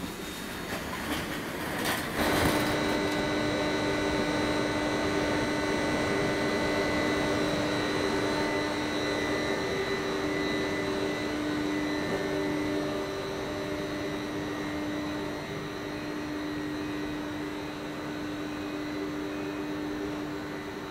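Stationary TGV power car's cooling fans and electrical equipment running, a steady hum with a whine of several fixed tones that comes in loudly about two seconds in, after a few light knocks.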